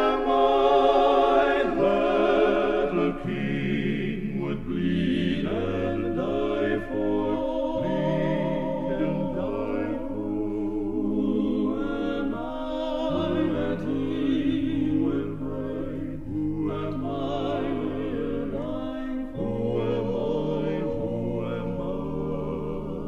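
Male gospel quartet singing in close harmony, sustained voices over a low bass part, with no clear lyrics.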